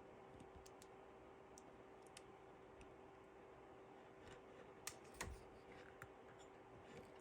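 Faint scattered clicks and taps of a PTFE tube being pushed into and worked against a 3D printer extruder's pneumatic push-fit connector, a few slightly louder clicks about five seconds in, over a faint steady hum. The connector's gripping teeth have failed, so the tube will not lock in.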